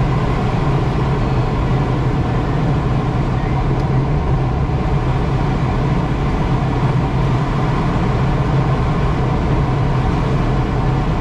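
Steady, loud rushing noise with a low drone inside a sailplane's cockpit, unchanging throughout.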